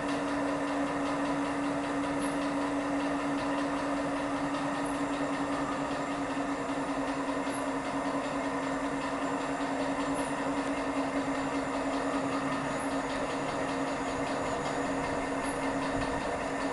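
Centrifugal fan impeller spinning at steady speed, a constant whirring drone with one strong steady hum tone. Faint short high chirps recur about every two and a half seconds.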